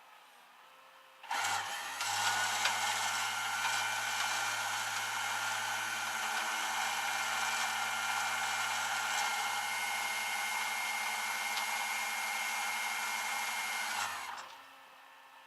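A motor starts suddenly, runs steadily with an even whine for about thirteen seconds, then stops.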